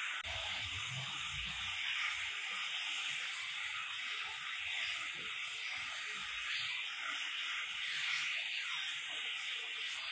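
Handheld angle grinder with a polishing pad working the edge of a terrazzo stair step, making a steady abrasive hiss.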